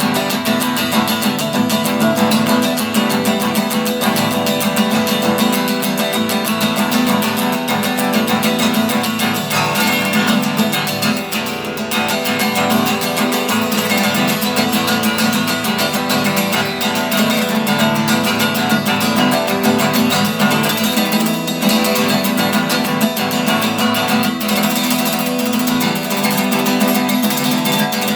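Guitar played without a break, dense strumming and picking with no pauses.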